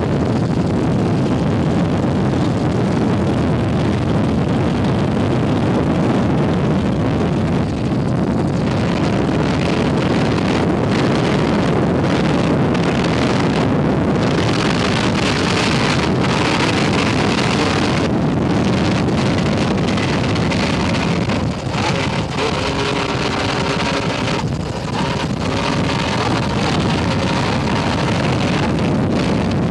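Offshore racing powerboat engines running flat out, a loud continuous roar mixed with wind rush on the microphone. Past the middle a clear pitched engine note with several harmonics comes through for a few seconds.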